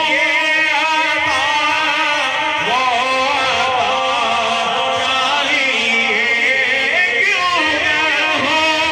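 A man singing a naat (Urdu devotional song in praise of the Prophet) in a wavering, richly ornamented melody, with a steady held drone underneath.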